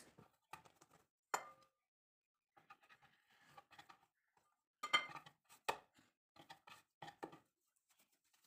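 Scattered light knocks and taps of dough being divided and handled on a wooden board, with a sharper knock about a second and a half in and a cluster of louder ones around five seconds in.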